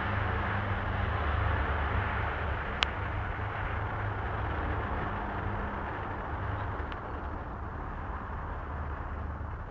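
Steady din of city traffic with a low hum under it, and one sharp click about three seconds in.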